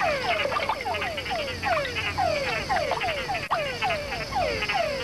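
A breeding chorus of male frogs calling at night. Many overlapping calls, each a quick falling whine, come about three or four a second.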